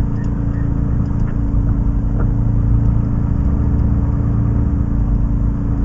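Fire engine's motor running steadily while it drives the pump feeding the bumper nozzle that sprays water, heard from inside the cab as an even low rumble.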